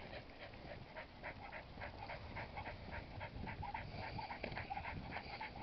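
A dog panting quietly in quick, even breaths, about four or five a second.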